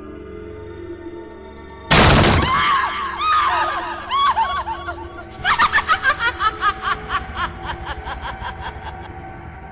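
Horror sound effects over a dark ambient music drone. A sudden loud crash about two seconds in is followed by a run of high-pitched, rising-and-falling cries like a cackle. A second, faster cackling run begins about five and a half seconds in and fades away.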